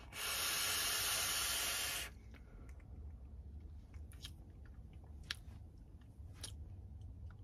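Loud hiss of a long draw pulled through a rebuildable dripping atomizer on a mechanical mod, about two seconds long. It is followed by a few faint clicks.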